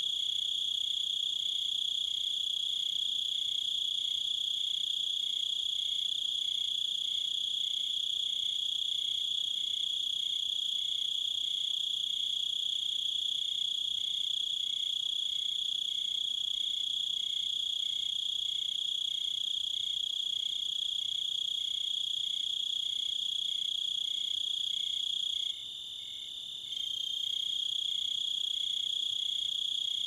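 Crickets chirring in a continuous high-pitched trill, with a fainter chirp pulsing underneath a little more than once a second. The trill briefly drops away near the end, then returns.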